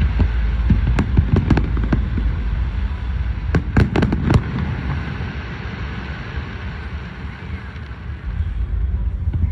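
Aerial fireworks shells bursting with sharp bangs, a quick cluster of several cracks about four seconds in, over a continuous low rumble of booms that eases off in the second half.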